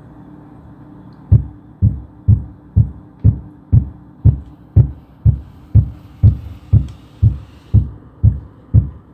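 Heavy, evenly paced thuds on a hardwood floor in the apartment above, heard through the ceiling, about two a second, starting about a second in and going on without a break. The tenant below calls it the upstairs neighbour's nonstop hammering on the floor.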